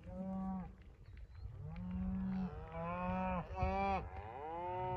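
Herd of black cattle mooing: about five long moos one after another, partly overlapping, with pitch that slides.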